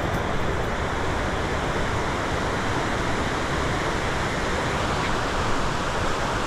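Steady, even rush of falling mountain water from a cascade close by.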